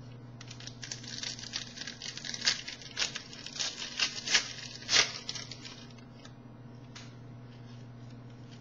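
A card pack wrapper being torn open and crinkled by hand, with a run of crackling and tearing for about five seconds, then it stops.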